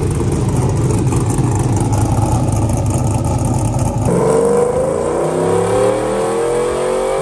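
LS V8 in a Chevrolet Silverado pickup running on a chassis dyno, with a rough, choppy idle typical of a low-lobe-separation cam. About four seconds in it changes to the engine pulling under load, its pitch rising slowly and steadily.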